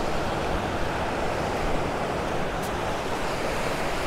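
Steady wash of ocean surf breaking on a beach, with wind buffeting the microphone.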